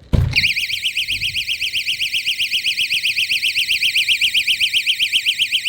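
Wedge-type door stop alarm going off as the door is opened against it: a loud, high, rapidly warbling shriek, about nine rises and falls a second, just after a brief thump of the door.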